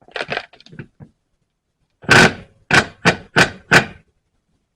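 Impact wrench hammering in five short bursts about a third of a second apart, loosening a UTV wheel's lug nut, after a few light clicks in the first second.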